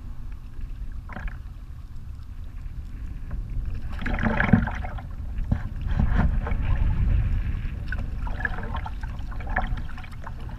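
Double-bladed kayak paddle dipping and splashing into the water over several strokes on alternating sides, against a steady low wind rumble on the microphone.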